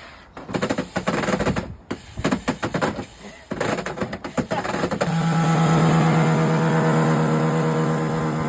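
Chainsaw cutting into an LCD TV: irregular cracking and clattering of the breaking set for about five seconds, then the chainsaw running at a steady high rev for the rest.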